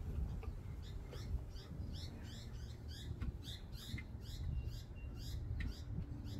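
Cloth wiping window glass, squeaking in short, high, falling squeaks about two to three a second, over a low steady rumble.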